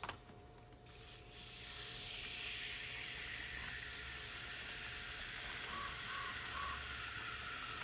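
Aerosol can of WD-40 bike chain cleaner spraying degreaser foam onto a motorcycle chain: a steady hiss that starts about a second in and holds.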